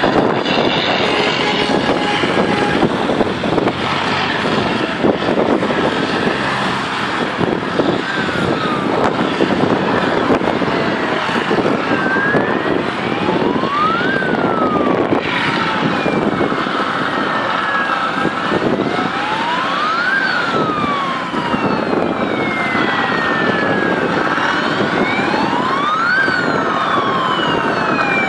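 Fire engine siren in a slow wail, rising and falling about every six seconds and growing stronger as it approaches, over steady background noise from road traffic.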